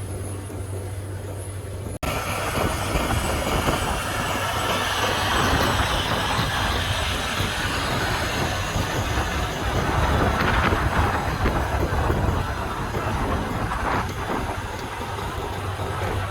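Challenger 875C tracked tractor at work pulling a Gaspardo Diablo 600 cultivator: first a steady low engine hum, then, after a sudden change about two seconds in, a louder rough rumble and clatter of tracks and implement in the soil.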